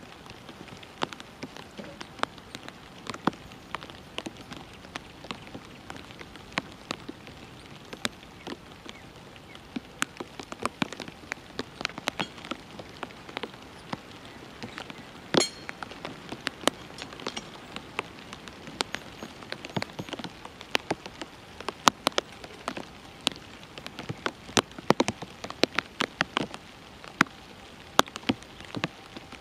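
Irregular light ticking and tapping, several a second, growing denser and louder in the second half, with one sharper click about halfway through.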